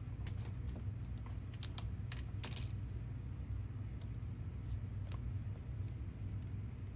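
Light clicks and taps from a laptop and its replacement LCD panel being handled against the keyboard, densest in the first three seconds, over a steady low hum.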